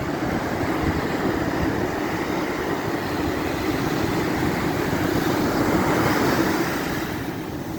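Ocean surf breaking and washing on a beach, with wind buffeting the microphone; the rush swells a little about five seconds in.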